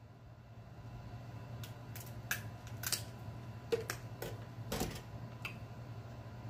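Close-miked eating sounds from a man chewing crab: a string of short, sharp mouth smacks and clicks, about nine in all, over a steady low hum.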